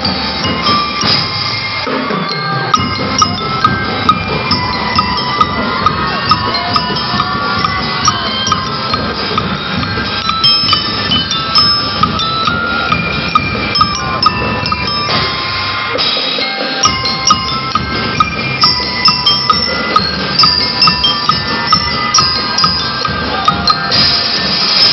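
Drum and lyre corps playing: a ringing melody on metal bell lyres over snare drums beating out a steady march rhythm with sharp, regular strokes.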